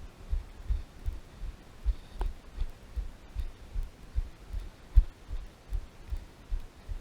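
Hiker's footsteps on a trail: dull, low thuds about two and a half a second in a steady walking rhythm.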